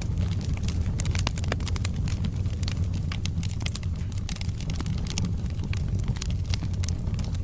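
Wood fire burning in a fireplace: logs crackling and popping with many sharp, irregular snaps over a steady low rumble of the flames.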